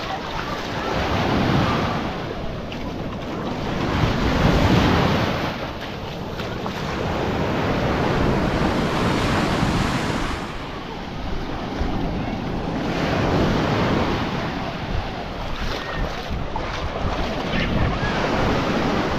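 Baltic Sea surf breaking and washing up on the beach, swelling and falling every few seconds, with wind buffeting the microphone.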